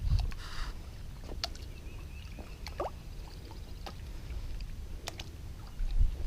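A neodymium magnet on a rope being dabbed and dragged through shallow, muddy lake water: light splashing and sloshing, with a few scattered sharp clicks and low thumps, one of them just before the end.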